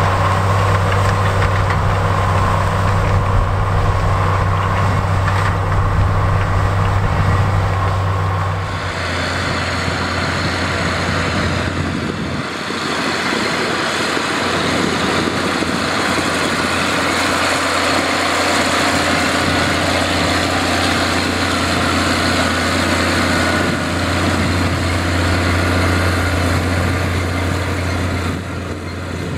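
Big farm tractor diesel engines running steadily under tillage load. For the first nine seconds it is a Case IH 8950 Magnum pulling a disk ripper, with a strong low hum. Then it changes to a Caterpillar Challenger 65 rubber-track tractor working a field cultivator, with a lower hum and more rumble and rattle.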